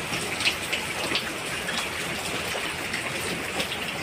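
A steady watery hiss with many small sharp pops: heavy rain on the tin roof mixed with gulgulas deep-frying in hot oil in an iron kadhai.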